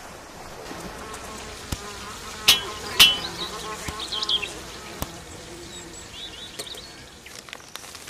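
A housefly buzzing, its pitch wavering up and down, with short high chirps over it. Sharp clicks cut through it, the loudest two about two and a half and three seconds in.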